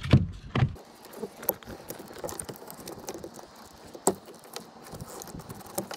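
Plastic wiring connectors being unplugged from a car's power window switch panel: plastic handling rattle with a few sharp clicks, the loudest about four seconds in.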